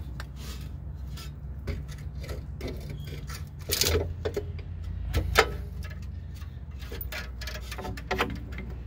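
Small metallic clicks and rubbing as the rear brake hose's banjo fitting is worked off the caliper by hand, with a couple of louder clicks about four and five seconds in, over a low steady hum.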